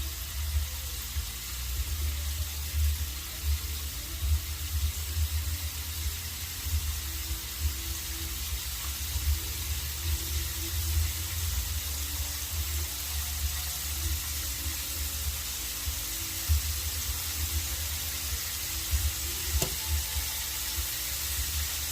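Flour-battered chicken thigh strips deep-frying in hot vegetable oil: a steady sizzle, with a low rumble underneath.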